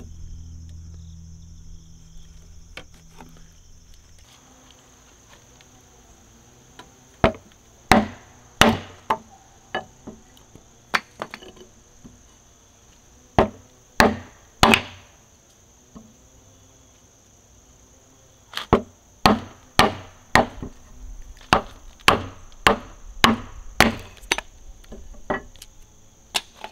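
A mallet striking a large framing chisel, chopping into the end of a timber beam to cut a tenon: sharp knocks in short groups, then a steady run of about two blows a second in the second half.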